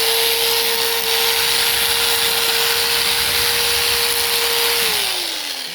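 SDS hammer drill running at full speed to chisel off a bit of stone, a loud steady motor whine over harsh noise, then winding down in pitch about five seconds in as the trigger is released.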